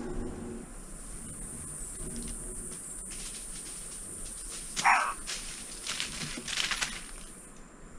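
A steady, high-pitched drone of tropical forest insects that stops shortly before the end. About five seconds in comes one short, sharp, loud sound, followed by a couple of seconds of scattered crackles, as of something moving through dry leaf litter.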